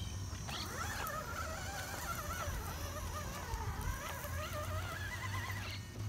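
Electric motors of several RC rock crawler trucks whining as they crawl over rocks, the pitch wavering up and down with the throttle, over a steady low hum.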